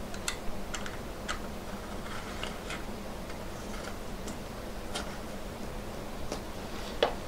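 Small irregular clicks and taps of metal as the stainless-steel case back and its rubber seal are fitted by hand onto a Seiko V175 chronograph case held in a watch case holder. A steady low hum runs underneath.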